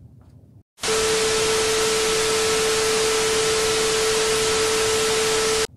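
TV static sound effect: a loud hiss with a steady mid-pitched tone held over it. It starts abruptly about a second in and cuts off suddenly near the end, the sound of a broadcast signal dropping out.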